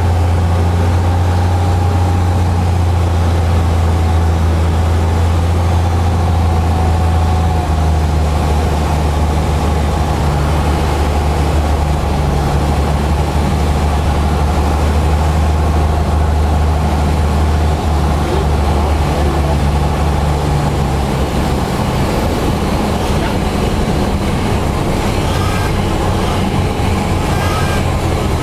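Cessna 172's piston engine and propeller droning steadily in the cockpit on final approach to landing. About three-quarters of the way through the low drone weakens and grows rougher as power comes back for the landing.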